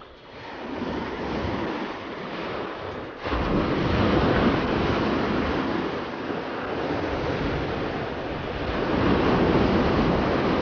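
Surf breaking and washing up a sandy beach against rocks, with wind buffeting the microphone. It gets suddenly louder and rumblier about three seconds in, and swells again near the end.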